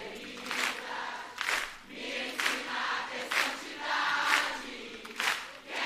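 A large studio audience singing together as a crowd choir, with hand claps in time at about one clap a second.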